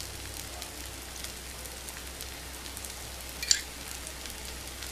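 Oil sizzling and crackling around karupatti paniyaram in a hot nonstick paniyaram pan, just after oil has been dribbled around each flipped paniyaram to fry the second side. There is a short, sharper sound about three and a half seconds in.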